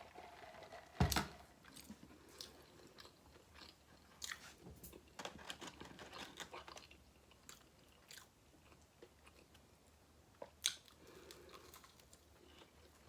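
A person chewing and crunching food, with many small wet mouth clicks. Two sharper, louder clicks, about a second in and near the end.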